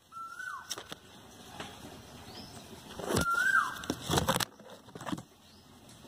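Asian koel calling twice, about three seconds apart: each call a held whistled note that lifts briefly and then slides down. Loud bursts of rustling and bumps from leaves brushing close to the microphone, the loudest overlapping the second call.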